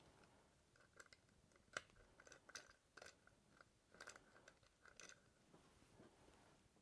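Near silence with faint, scattered small clicks and taps, as of hardware being handled during rack assembly.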